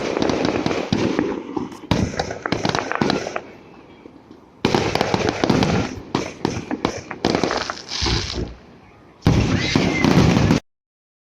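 Fireworks going off in salvos of rapid, densely packed bangs and crackles, four or five bursts with short lulls between them, cutting off abruptly near the end.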